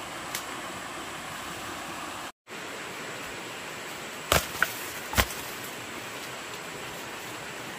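Steady rush of water, broken by a brief total dropout a little over two seconds in, with three sharp knocks about halfway through.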